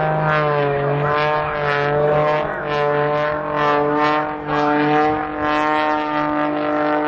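Propeller-driven aerobatic airplane's piston engine running hard through manoeuvres, its pitch rising and falling over a steady low drone.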